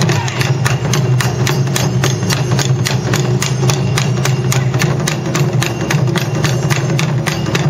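Japanese taiko drums played by an ensemble in a fast, unbroken run of hard stick strokes, several a second, over a constant deep rumble from the big drums.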